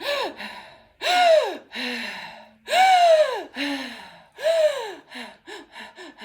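A woman breathing quickly and deliberately with voiced gasps: each gasp's pitch rises and then falls, several loud ones about a second apart with noisy breaths between, then shorter, quicker gasps near the end. It is a deliberate breathing-with-sounds exercise, not real distress.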